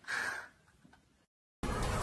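A person's short, sharp breathy gasp, about half a second long. Near the end the sound cuts out for a moment, then music and voices come in abruptly.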